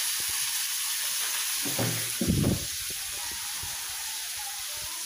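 Chopped vegetables sizzling and frying in a hot pan, a steady hiss, with a short louder thud about two seconds in.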